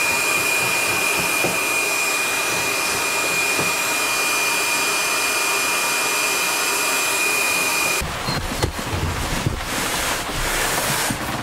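Electric heat gun (DeWalt) blowing steadily, with a thin high whine over its fan noise, while heating paint off a wooden hull's frames. About eight seconds in the whine stops, and a quieter, rougher noise with a few knocks follows.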